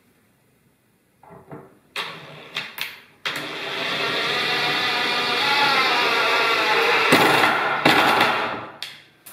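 Ryobi cordless driver running a screw up through a plywood sled base into a pine fence: a few handling clicks, then a sudden run of the motor lasting about four seconds, a brief break, and a second run of about a second and a half as the screw is driven home.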